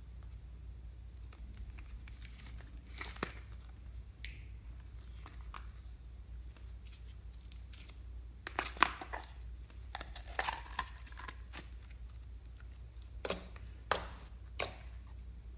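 Slime being handled by hand, giving scattered sticky crackles and pops in a few short clusters, the sharpest about nine and fourteen seconds in.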